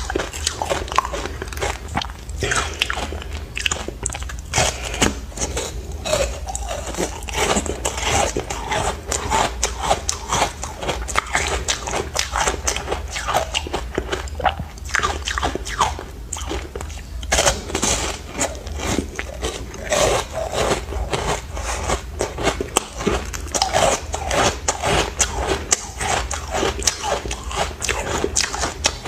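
A person biting and chewing chunks of ice coated in matcha powder: a dense, irregular run of loud crunches and cracks, close to the mouth, over a faint low hum.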